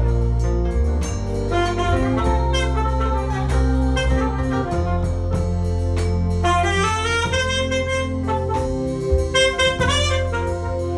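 Saxophone playing a melody over a backing track with a steady bass line, with quick rising runs of notes partway through.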